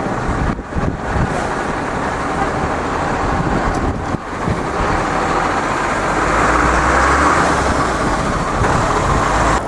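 Street traffic noise, steady, growing louder in the second half with a low rumble as a vehicle runs close by.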